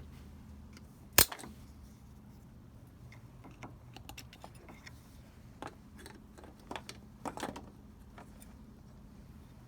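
Scattered clicks and light knocks of small parts being handled as the rotor is put back into a Bosch distributor, with one sharp click about a second in and a short cluster of knocks around seven seconds in.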